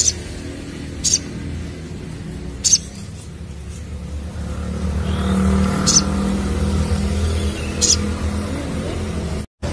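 Crimson sunbird giving short, sharp, high chirps about five times, spaced irregularly. Beneath them runs a steady low engine rumble that swells in the middle, as of a motor vehicle passing. The sound cuts out briefly near the end.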